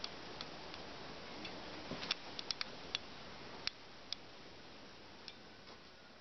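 Quiet room tone with a steady faint hiss, broken by about a dozen light, sharp clicks at irregular moments, most of them in the first four seconds.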